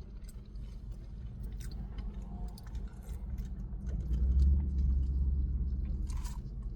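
A person chewing and biting into fried chicken close to the microphone, with small crunching clicks. A low rumble swells up a little past the middle and fades before the end.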